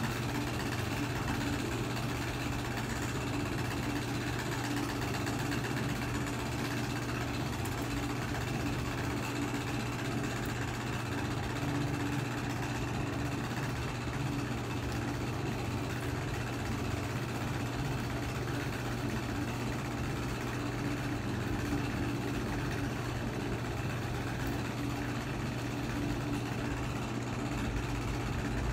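A steady low mechanical hum, like a motor running, unchanging throughout.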